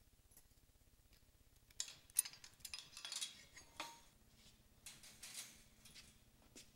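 Light metal clinking and rattling of a chain-link cage gate's latch being unlocked and the gate opened, a run of quick clicks starting about two seconds in and a few more near the end.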